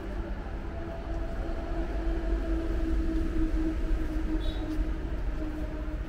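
A vehicle running: a steady low rumble with a droning tone that swells in the middle and eases off toward the end.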